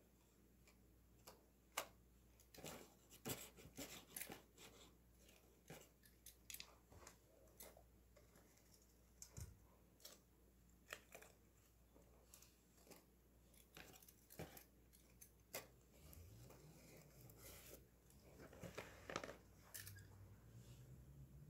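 Faint scattered clicks and paper crinkles as small paper toy bins are picked up with metal tongs and tipped into a paper toy garbage truck. A faint low hum rises and falls near the end.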